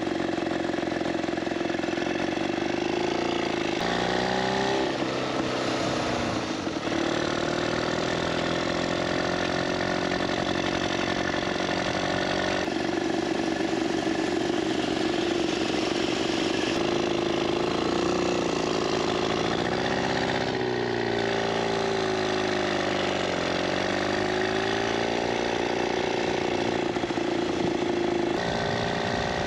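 A 1915 Scott water-cooled two-stroke twin motorcycle engine running under way. Its pitch rises and falls with speed, dipping and climbing again several times.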